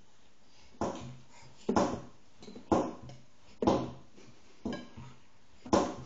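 A toddler banging on a tabletop: six sharp knocks, about one a second, each ringing briefly.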